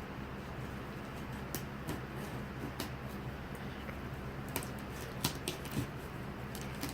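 A box or its packaging being cut open with a knife: scattered small clicks and scrapes, more frequent and sharper from about halfway in, over a steady low room hum.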